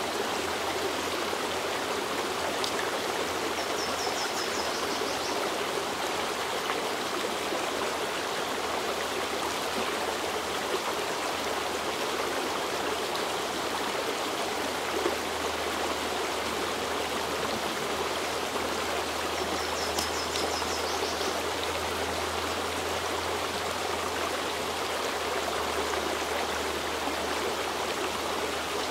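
Small woodland creek flowing steadily, a continuous even rush of water. A brief high trill of quick repeated notes cuts in twice, about 4 and 20 seconds in.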